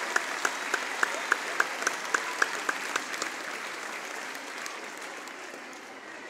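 Crowd applauding, with sharp, close claps in an even beat of about three a second; the close clapping stops about three seconds in and the applause dies away.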